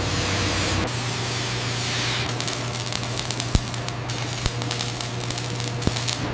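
Arc welding on steel plate: a steady hiss with crackling spatter over a low electrical hum, and a few sharp pops.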